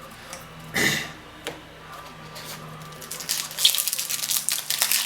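A trading-card pack's wrapper being torn open: a short rip about a second in, then dense crinkling and rustling of the wrapper and cards from about three seconds in.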